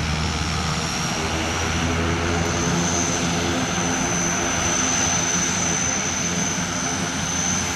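Twin turboprop engines of an Antonov An-24-family transport running as it taxis, a steady low propeller drone under a high, thin turbine whine that grows stronger about three seconds in.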